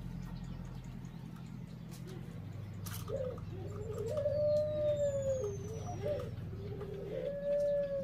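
A dove cooing in long, bending phrases from about three seconds in, loudest in the middle and again near the end. Faint, thin, falling whistles of small birds sound above it, over a steady low hum.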